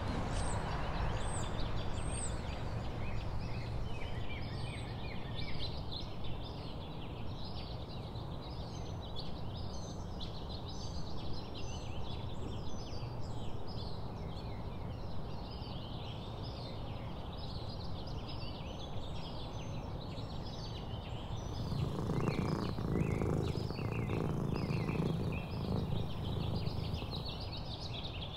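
Many small birds chirping and twittering continuously outdoors, over a steady low background rumble. A louder low noise swells for a few seconds near the end.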